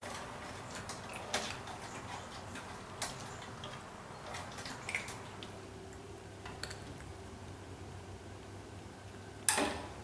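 Scattered light taps and clicks of a kitten's paws and claws on a wooden door frame, with one louder knock near the end.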